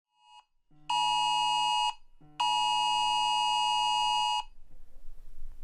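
Mobile phone emergency alert tone from the UK Emergency Alerts test: a brief faint beep, then two long, loud, steady electronic alarm tones with a short gap between them, the second about twice as long as the first.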